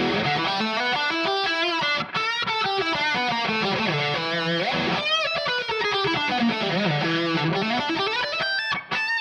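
Donner DST-152B electric guitar, freshly strung with D'Addario 10-gauge strings, played as an amplified lead line. Quick runs of notes sweep down in pitch and back up again.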